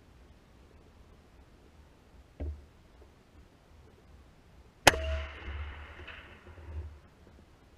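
A single hunting-rifle shot fired at a deer, about five seconds in, trailing off over about two seconds. A faint knock from handling the gun comes a couple of seconds before it.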